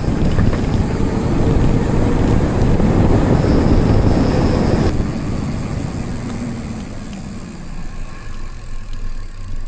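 Wind rushing over the microphone and tyre rumble from a mountain bike rolling along at speed. The noise eases off after about five seconds as the bike slows.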